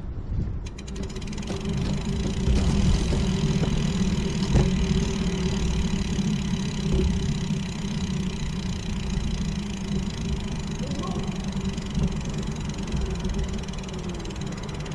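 Rail bike's guide wheels rolling along a steel rail: a steady rolling rumble with a hum, whose pitch drops slightly near the end as it slows.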